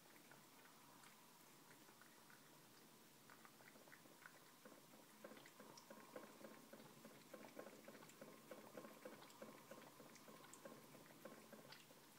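Calico cat lapping milk from a saucer: faint, quick, wet laps repeating about three to four times a second.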